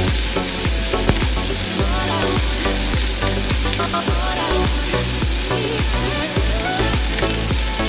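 Pork belly cubes sizzling as they fry in a nonstick pan, with a silicone spatula stirring and scraping them around. Background music with a steady beat plays throughout.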